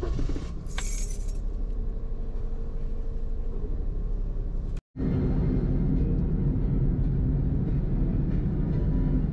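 Steady engine and road noise inside a Toyota car's cabin, with a brief jangle about a second in. About halfway through the sound cuts out for an instant at an edit, and a louder, steady low driving rumble follows.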